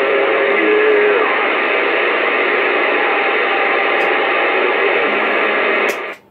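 Uniden Bearcat CB radio's speaker receiving on AM channel 6, giving out a loud steady rush of static with faint whistling tones in the first second. The static cuts off suddenly just before the end.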